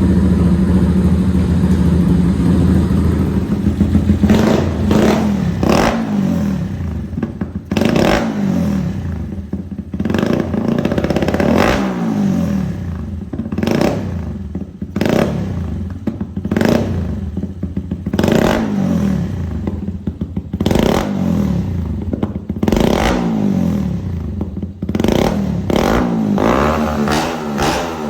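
Honda CG 160 Start's single-cylinder engine, freshly built up and running on methanol, idles steadily for a few seconds. It is then revved in repeated short throttle blips, roughly one every second or two, the revs falling back after each.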